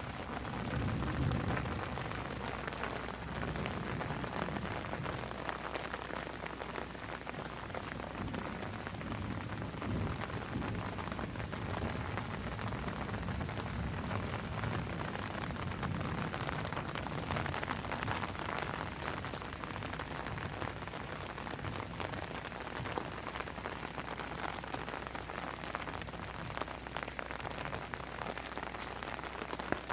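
Steady rain falling, with many small drop impacts heard individually.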